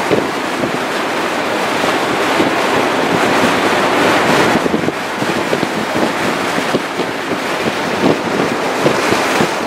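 Wind rushing in through the open panoramic glass sunroof of a 2018 VW Tiguan SEL at about 55 mph, heard inside the cabin as a steady, even rush that eases slightly about halfway through. The wind deflector keeps it not very loud.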